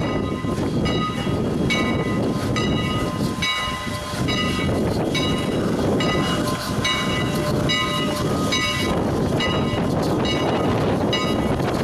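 Steam locomotive bell ringing steadily, about one stroke every second, over the low rumble of the moving train and wind on the microphone.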